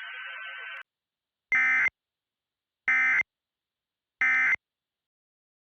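Emergency Alert System End of Message signal: three identical short, harsh digital data bursts about a second and a half apart, marking the end of the alert. A faint steady hiss runs for the first second before them.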